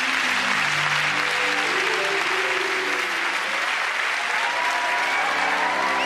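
A theatre audience applauding steadily, with music playing over it. The applause starts suddenly at the beginning.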